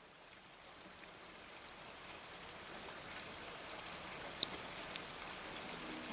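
Rain falling, fading in from near silence and growing steadily louder, with scattered drips ticking; one sharper drip about four and a half seconds in.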